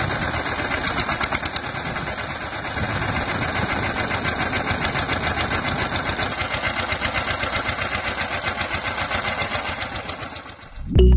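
Small electric motor of a miniature DIY toy tractor running, with a rapid, even rattling pulse; it cuts off near the end.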